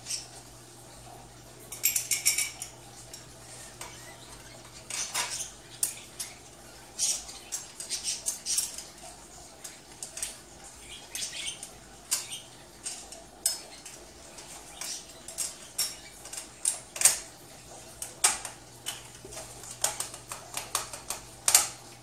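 Light metallic clinks and rattles, irregular and in clusters, from the steel tube frame of a folding rollaway bed being handled and fitted by hand.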